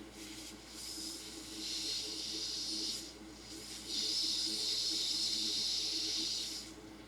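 Air hissing in two long bursts of about three seconds each, with a short gap between them, over a steady low hum.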